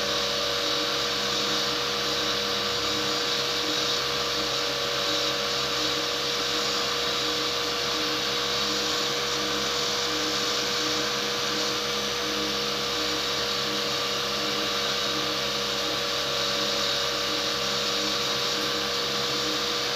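Cotton candy machine running at speed: the motor-driven spinning head gives a steady whine over a hiss of rushing air. The air blast from the spinning head is very strong.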